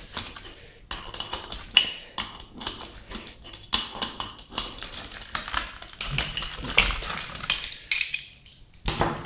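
Irregular metallic clinks, taps and knocks of a gear puller and steel pump parts being handled as a water pump is taken apart.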